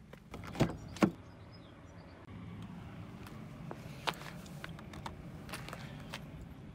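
Handling of a small folding camera drone: two sharp clicks about half a second apart, then a faint low steady hum with a few soft ticks as it is set down on the ground.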